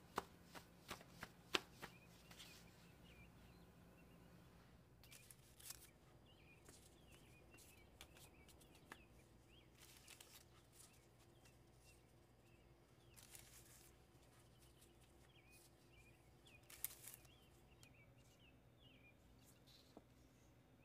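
Near silence broken by soft handling sounds of raw pita dough: a few light taps in the first two seconds, then occasional rustles as gloved hands move the dough rounds about on parchment paper.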